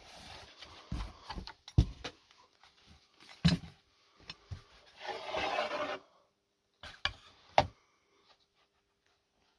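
Handling noise from a fiberglass prop blaster and its holster: scattered knocks and short rubs, then a longer rubbing scrape of about a second as the blaster slides out of the holster, followed by two sharp knocks.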